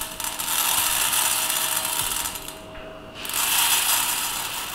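Dry tuvar dal (split pigeon peas) poured into a stainless steel pressure cooker pot, the grains rattling against the metal. It comes in two pours, with a short pause about two and a half seconds in.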